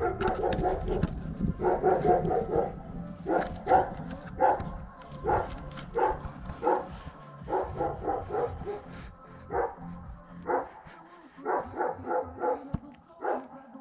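A dog barking over and over, in single barks and quick runs of barks.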